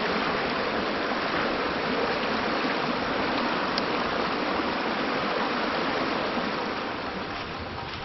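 Mountain stream water rushing steadily over rocks, easing a little near the end.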